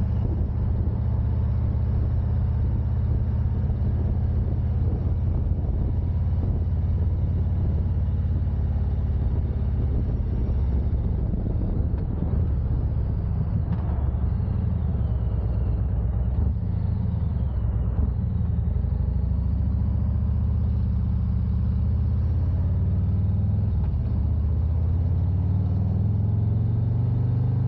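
Motorcycle running on the road, its engine and wind rumble heavy and steady on a windsock-covered external mic. Near the end the engine pitch rises as it speeds up.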